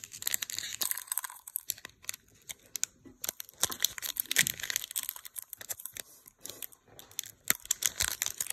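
Foil wrapper of a Pokémon trading card booster pack being torn open and crinkled in the hands: a run of crackling, tearing rustles with short pauses.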